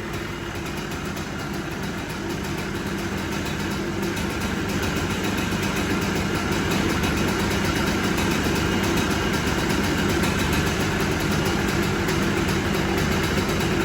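A 1993 Yamaha Blaster's two-stroke single-cylinder engine idling steadily, growing a little louder over the first half and then holding even.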